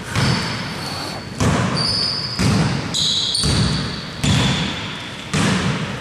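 A basketball being dribbled on the court at an even pace, about one bounce a second, with short high sneaker squeaks between the bounces.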